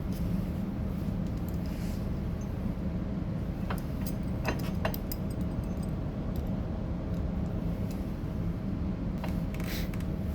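Steady low background hum with a few light clicks and taps of small parts being handled: a cluster about four seconds in and another near the end.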